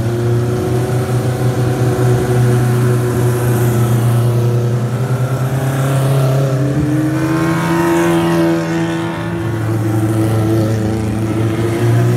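Several Legends race cars running at low revs as they creep out in a line. About halfway through, one pulls past close by, its engine note rising.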